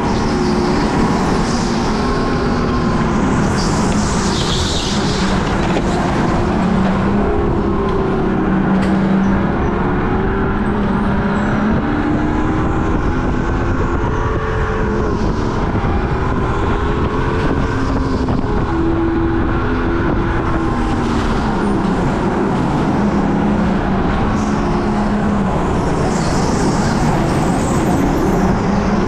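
Rental go-kart engine running hard on track, its pitch repeatedly climbing and dropping as the kart accelerates out of corners and slows into them, over a steady rushing noise.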